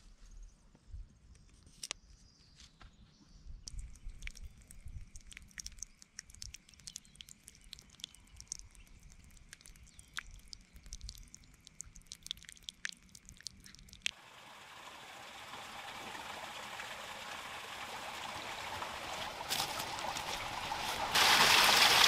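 Faint scattered ticks and clicks for the first two-thirds. Then, about two-thirds of the way in, the steady rush of a small waterfall trickling down a rock face into a pool begins abruptly and grows louder toward the end.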